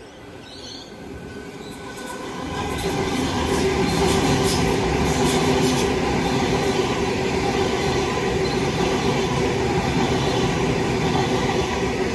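A Sydney Trains double-deck electric train passing close by. Its sound builds over the first three seconds, then holds steady: a rumble of wheels on rail with a steady whine running through it.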